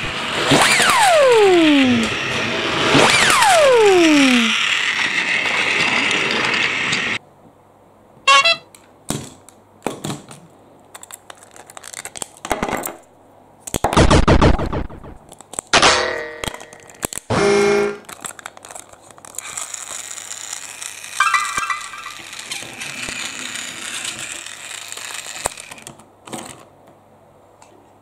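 Two falling whistle-like sound effects over a steady hiss, cut off abruptly about seven seconds in; then scattered clicks and short clatters of plastic toy train parts being handled.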